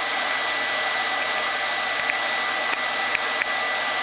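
Hot-air plastic welder blowing a steady hiss of hot air, with a thin steady whistle, as its tacking tip is drawn along the joint. A few faint ticks come in the middle.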